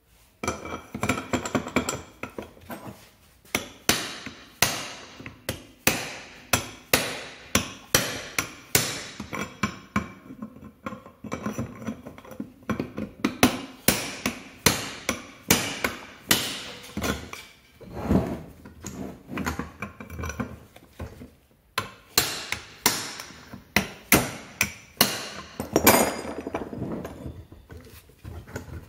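Repeated hammer blows on a steel drift held against a scooter engine's crankcase at the crankshaft end, about two sharp metallic strikes a second with a couple of brief pauses.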